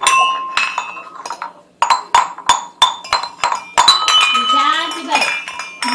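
Metal kitchen vessels being banged repeatedly by a small child: a dozen or more irregular clangs, each ringing briefly. A toddler babbles over the banging in the second half.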